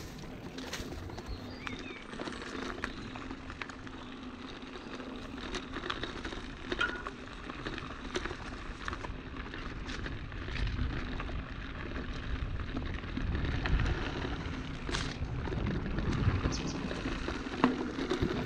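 Footsteps crunching and rustling irregularly along a forest trail, with a low rumble of wind on the microphone that grows stronger in the second half.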